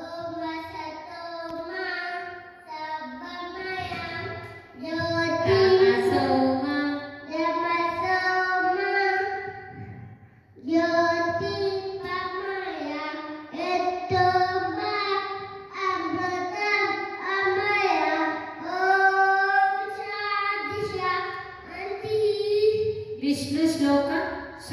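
A young boy chanting a shloka in a sing-song melody into a microphone, with a short break about ten seconds in.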